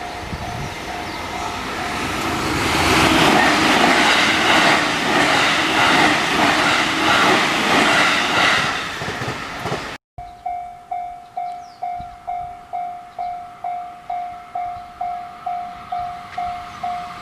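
Japanese level-crossing warning bell ringing about twice a second while a train passes the crossing, the train loudest for several seconds in the first half. After an abrupt cut about ten seconds in, the crossing bell rings on alone.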